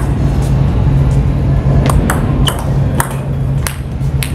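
Table tennis ball ticking on the table and off the rackets in a serve-and-short-return drill: a reverse side-spin serve answered by a short stop return, heard as a string of sharp, separate clicks. Background music runs underneath.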